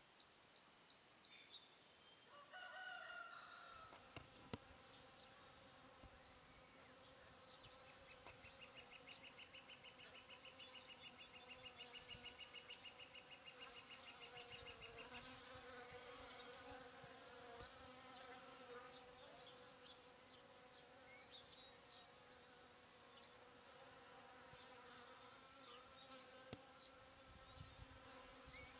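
Honeybees buzzing at the hive entrance, a faint steady hum. A bird chirps a quick run of high notes at the very start, and a rooster crows faintly a few seconds in.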